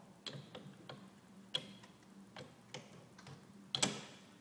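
Irregular light metallic clicks and knocks as a turbocharger cartridge is seated and clamped into a metal balancing cradle, with one sharper knock near the end.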